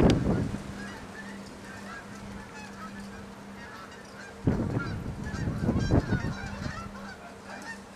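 Strong wind gusts buffeting the microphone, one right at the start and a longer one from about halfway to three-quarters through, over a steady low hum. Throughout, a flock of birds calls busily in the background.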